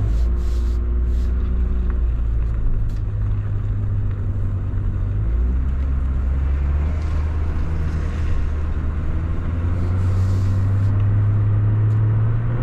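2003 Chevrolet Trailblazer driving on the road, heard from inside the cabin: a steady engine drone with tyre and road noise. The engine note drops about five seconds in and then climbs steadily.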